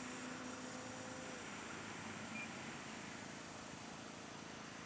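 Faint, steady hum of the E-flite Carbon-Z Cessna 150T's electric motor and propeller in flight; the low tone dies away about a second and a half in. A single short, high beep sounds near the middle.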